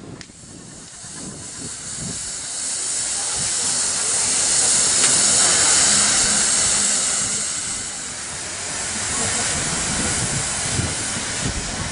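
Steam hissing from a vintage steam engine, swelling to its loudest in the middle and easing off near the end.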